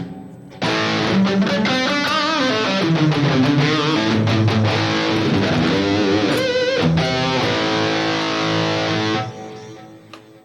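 Distorted electric guitar played through a Fractal Audio Axe-Fx III modeler with a 2290-style delay. It plays a phrase with bent and vibrato notes from about half a second in to about nine seconds, then fades away.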